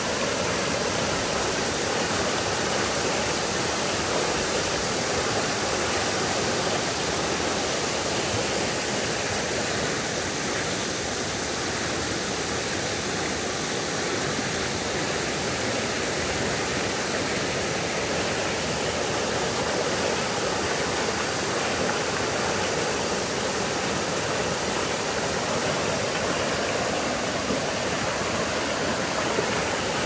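River water rushing steadily as it flows rough and winding past a reed bed.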